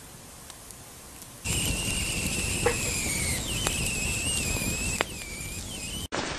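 Campfire burning loudly, with a wavering high whistle of steam escaping from the burning wood and a few sharp crackling pops. It starts abruptly about a second and a half in, after faint woodland quiet.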